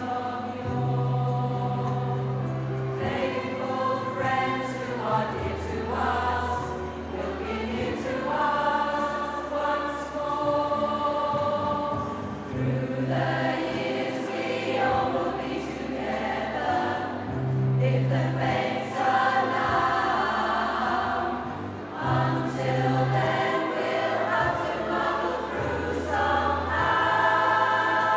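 A large amateur choir, mostly women's voices, singing a Christmas medley in harmony, with steady low bass notes underneath that change every second or two.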